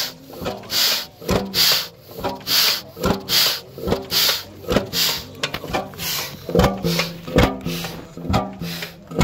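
1928 Beijer hot bulb (crude oil) engine running at almost zero rpm on a bare trickle of fuel, rocking back and forth instead of turning over. It fires, bounces back off compression and fires again, giving an even beat a little over once a second, each beat a knock with a hiss.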